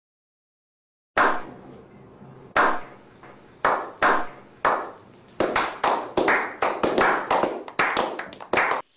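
Slow clap: after about a second of silence, single hand claps come a second or more apart, then quicken as more hands join in, and stop abruptly just before the end.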